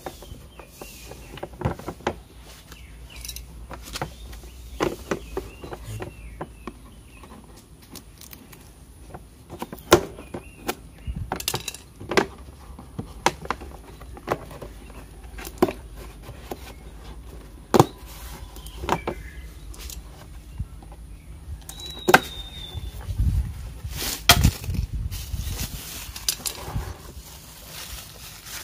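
Hands handling a cardboard toy box on a wooden table: scattered taps, knocks and scrapes of cardboard. Near the end, plastic wrapping rustles and crinkles as the contents are pulled out.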